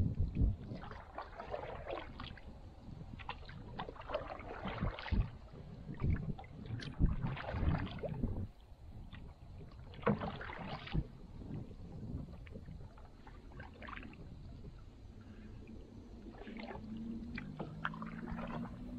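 Canoe paddle strokes: a splash and trickle of water about every three seconds as the blade pulls through and lifts out, with soft thumps in between. A faint low hum comes in near the end.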